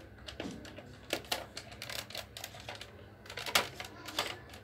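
Plastic clicks from the rotating six-dart cylinder of a Nerf Disruptor blaster being turned by hand, a handful of sharp, irregular clicks as the drum ratchets round.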